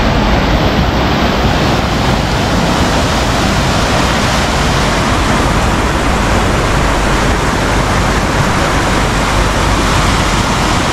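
Floodwater rushing in a steady, loud torrent through and out of a burst road culvert that could not carry the volume of water, churning through the collapsed roadbed.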